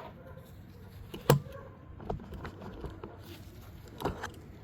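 A few separate clicks and taps from handling a removed spark plug, the sharpest about a second in and another pair near the end.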